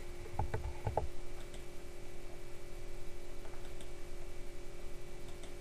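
Computer mouse clicking: about four quick clicks in the first second, then a few faint ticks, over a steady low electrical hum.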